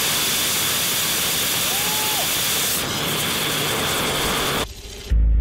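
Small 3D-printed propane-oxygen rocket engine firing: a loud, steady rushing hiss that starts abruptly and cuts off about four and a half seconds in. Music with a deep bass note comes in near the end.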